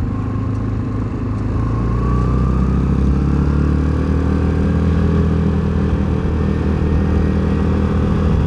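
Access Shade 850 Xtreme quad's engine pulling away, getting louder over the first few seconds as it speeds up, then running steadily at road speed. The machine is very loud.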